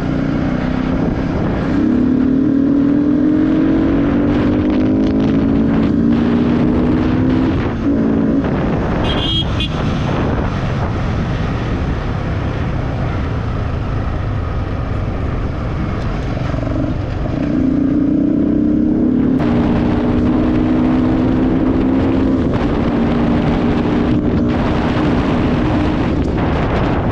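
Sport motorcycle engine under way, its pitch rising as it accelerates, easing off about eight seconds in and pulling again from about seventeen seconds, with steady wind rush on the microphone.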